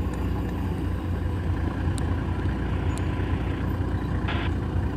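Game-drive vehicle's engine running with a steady low rumble, heard from on board.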